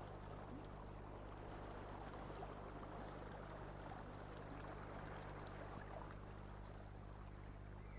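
Faint, steady river-water ambience over a low, steady hum.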